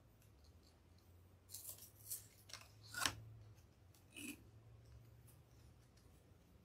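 Pipe cleaners being threaded through a wreath rail frame and twisted: a few short, soft scrapes between about one and a half and four seconds in, over a faint low hum.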